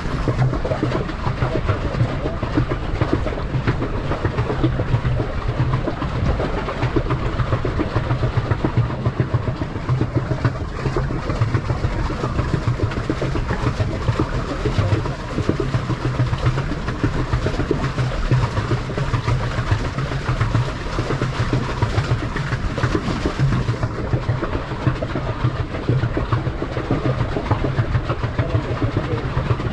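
Water sloshing and churning close against a moving pedal boat: a steady, noisy wash with an uneven low rumble.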